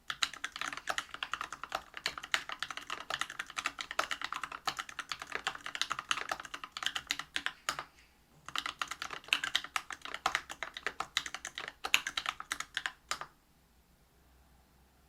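Fast typing on a Whale 75 mechanical keyboard with a brass plate, stock Bingsu POM 67 g linear switches and PBT keycaps: a dense run of key clacks. It breaks off briefly about halfway and stops a couple of seconds before the end.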